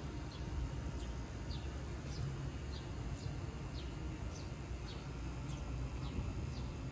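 A small bird chirping repeatedly in short, quick falling notes, about one or two a second, over a steady low rumble.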